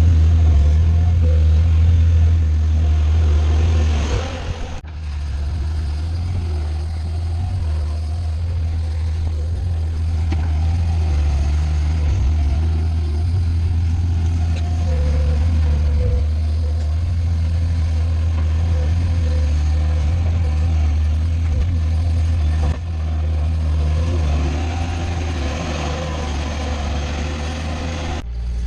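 Bobcat skid steer's diesel engine running steadily under work, a deep continuous hum, with a brief dip in level about five seconds in.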